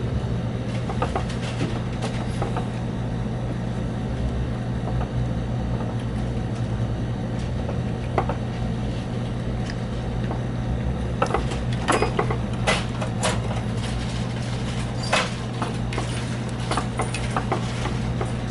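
A steady low hum, with scattered small clicks and taps as the plastic parts of a drone's gimbal and body are handled during disassembly. Most of the clicks come in the second half.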